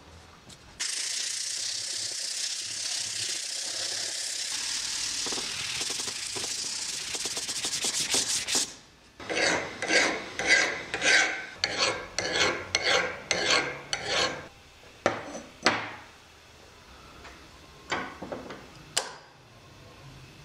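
Steady rubbing on a cast-iron clothes iron for the first several seconds, then a hand file scraping across the cast iron in quick even strokes, about two to three a second. A few single strokes and a sharp click follow near the end.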